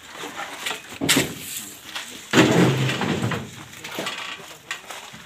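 A sharp knock about a second in, then a louder thud mixed with a man's voice, over scattered voices and handling noise.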